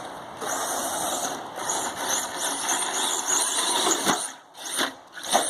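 RC monster truck driving on three wheels: a motor whine that wavers up and down with the throttle over the rattle of the chassis and tyres. About four seconds in it drops away, with a couple of sharp knocks, then picks up again near the end.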